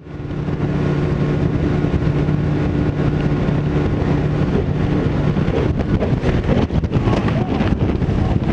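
Bass boat's outboard motor running under way, heard from the helm with wind on the microphone. A steady engine drone holds for about five seconds, then gives way to rougher rushing noise with frequent knocks.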